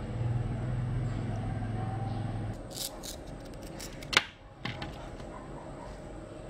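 A knife cutting a cucumber on a stainless steel tray: a few sharp clicks of the blade tapping the metal, the loudest about four seconds in. Before them, a steady low hum lasts for the first couple of seconds and then stops.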